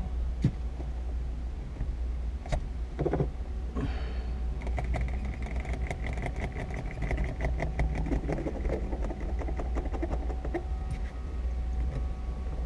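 Windshield cut-out winder ratcheting as the cutting line is drawn through the urethane bead, with scattered clicks and a rapid run of ratchet clicks from about five to ten seconds in. A steady low rumble runs underneath.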